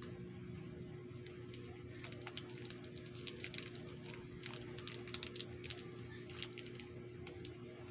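Paper wrapper of a Sugus chewy candy crinkling as it is handled, a fast irregular run of sharp crackles starting about two seconds in and dying away near the end, over a steady low hum.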